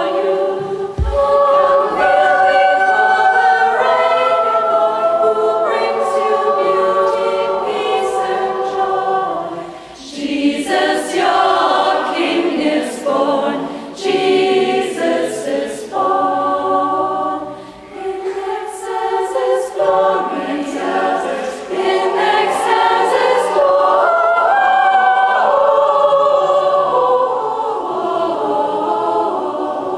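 Women's choir singing in several parts, with short breaks in the phrasing about ten and eighteen seconds in.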